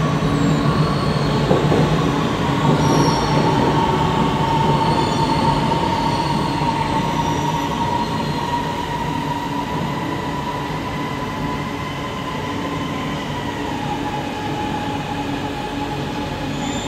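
CRRC SFM93 metro train slowing to a stop alongside the platform: a steady rumble, loudest in the first few seconds and gradually easing, under a high whine that slowly falls in pitch.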